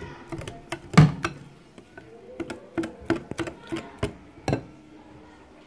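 Wire whisk beating pancake batter in a glass bowl, its wires clicking and knocking irregularly against the glass, with the loudest knock about a second in.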